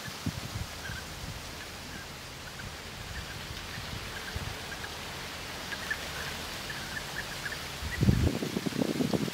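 European bee-eaters calling: faint, short, rolling calls scattered through, more of them in the second half. Near the end a louder burst of low rumbling, like wind buffeting the microphone.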